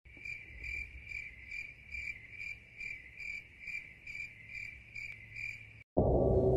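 Cricket chirping in a steady, even train of about two chirps a second, the stock stand-in for an awkward silence. It cuts off suddenly near the end as loud music with low sustained tones begins.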